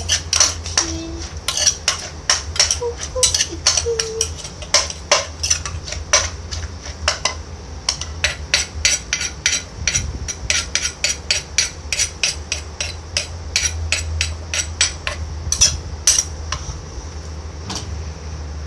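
Pestle and metal spoon knocking against a clay mortar as papaya salad is pounded and turned: a quick run of sharp knocks, three or four a second, stopping about two seconds before the end.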